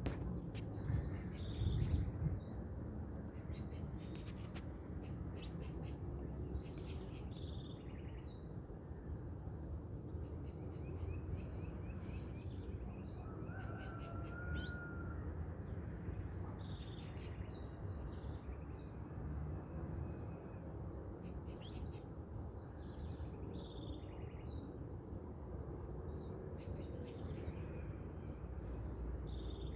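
Several birds calling and chirping in a dawn chorus: many short, scattered high chips and calls, with a lower whistled note about halfway through, over a steady low background noise.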